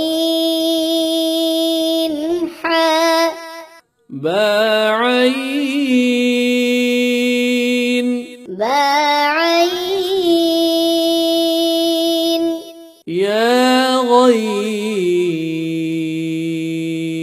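A voice recites Arabic letters in the slow, melodic, drawn-out style of Quranic recitation. Each syllable glides up in pitch and is then held on one note for several seconds, with brief pauses between them, about five in all.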